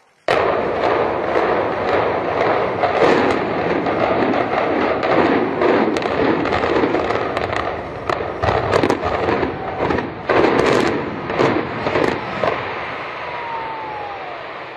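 Controlled demolition of a concrete high-rise tower frame. It starts with a sudden blast, then a long run of sharp cracks and bangs over the din of the collapsing structure. The cracks thin out after about ten seconds, and a short falling tone sounds near the end.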